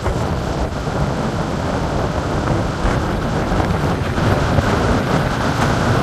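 Storm wind buffeting the microphone over heavy surf breaking on a beach: a loud, steady rumble that is strongest in the low end and never lets up.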